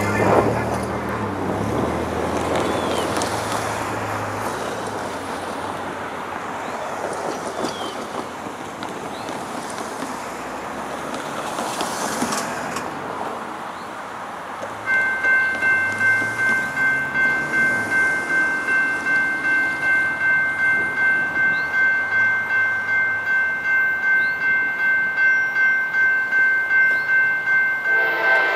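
A diesel freight train rumbling along the rails, fading over the first half. About halfway through, a railroad grade-crossing warning bell starts ringing about twice a second. Near the end, a locomotive horn begins to sound.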